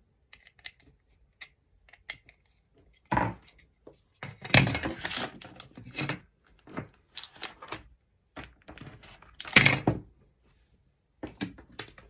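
Faint clicks of a screwdriver on a plastic light switch's terminal screws, then several louder bursts of rustling and knocking as electrical cables and the plastic switch body are handled and moved over paper on a table.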